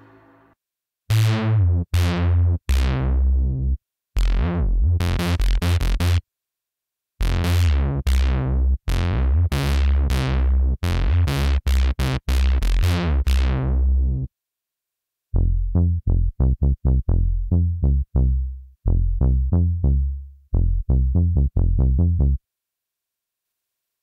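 Bass presets of the u-he Zebra2 software synthesizer played in short phrases of staccato bass notes. Each note starts bright and its filter closes quickly. After a pause about two-thirds of the way in, a tighter, darker plucked bass takes over.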